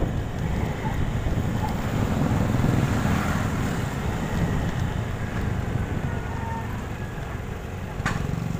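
Wind rushing over the microphone on a moving motorcycle, with the motorcycle's running and road noise underneath. A single sharp click near the end.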